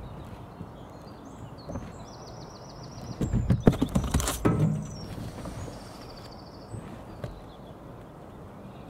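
A burst of loud thumps and knocks lasting about a second and a half, a few seconds in, over a steady outdoor background. A small bird's rapid high trill sounds twice, before and after it.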